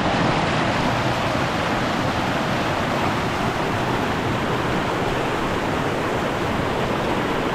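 Creek water rushing and splashing over rock in a small cascade, close to the microphone, as a steady, even rush.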